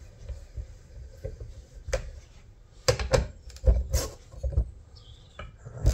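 Metal knocks and clanks from a hand tool working on a shock absorber and coil spring assembly clamped in a bench vise, several sharp strikes through the middle, with a brief high squeak a little after five seconds in.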